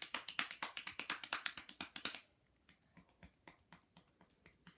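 Hands patting a baby's bare back in a massage with light, quick slaps, several a second. About two seconds in the rapid patting stops and gives way to softer, sparser taps.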